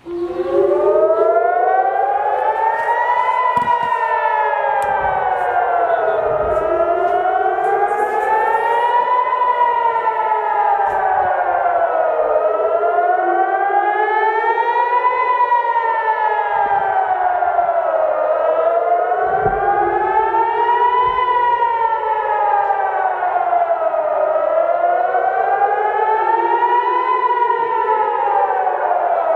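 Civil defense warning siren wailing in Israel's rising-and-falling pattern: the pitch climbs for about three seconds and falls for about three, over and over, with strong overtones. It comes on at full loudness at once.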